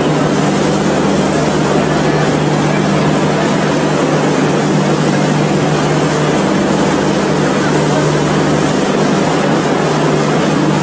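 Steady engine-like drone under a loud, even rushing hiss, unchanging throughout.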